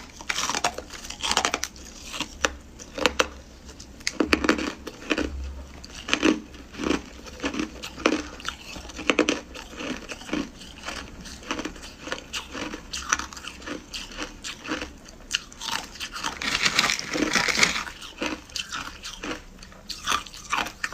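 White ice being bitten and chewed close to the microphone: a steady run of sharp, crisp crunches, about one to two a second, with a denser, louder burst of crunching a little after the middle.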